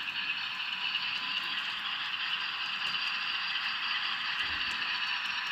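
N scale GE AC6000 model locomotive running in reverse: its sound decoder plays a steady diesel engine sound through a tiny speaker, thin and tinny, mixed with the whirr of its motor and gears.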